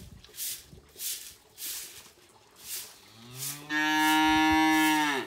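Cow mooing: one long, loud call that swells in about three seconds in, holds steady for over a second and cuts off abruptly near the end. Before it, the swish of a hand broom sweeping a straw-covered floor, about two strokes a second.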